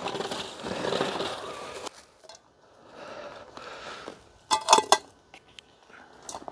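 Rustling and crunching as chicken treats are handled and scattered over snowy straw. Then, a little past the middle, comes a quick cluster of sharp metallic clinks, the loudest sound here.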